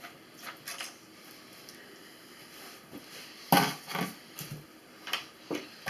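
Small computer parts being handled as the CPU-cooler retention braces are taken off a motherboard: light clicks, then a sharper knock about three and a half seconds in and a few more clicks and knocks.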